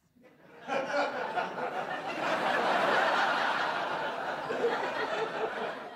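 Studio audience laughing, swelling to a peak a few seconds in and tailing off near the end.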